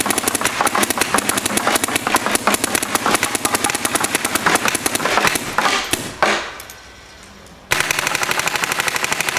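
Planet Eclipse LV1 electronic paintball marker firing in rapid, evenly spaced strings of shots, many per second. It fires for about six seconds, stops for about a second and a half, then starts another fast string.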